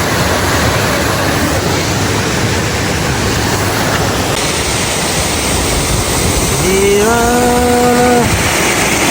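Steady rushing roar of falling water. A voice holds one long drawn-out note for about a second and a half near the end.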